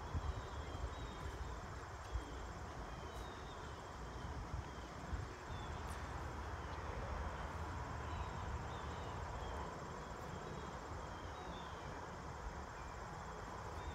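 Outdoor field ambience: wind rumbling on the microphone, with faint high chirps from an insect or bird repeating about once a second.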